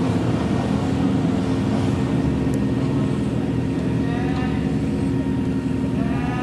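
Suzuki Jimny trial car's engine running at a steady speed, a constant low drone. Faint voices come through briefly about four and six seconds in.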